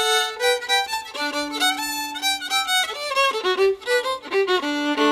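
Old-time fiddle tune: quick bowed notes played over a steady drone on a lower string, ending on a held double-stop that rings on.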